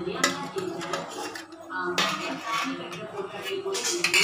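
A steel spoon clinking and scraping against stainless-steel bowls while scooping soaked dried red chillies out of water, with a few sharp clinks, the loudest about two seconds in and near the end.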